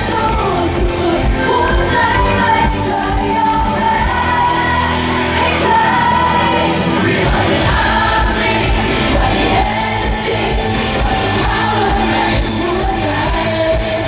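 Pop song performed on stage: male singers on microphones over a band with a steady drum beat, loud and continuous.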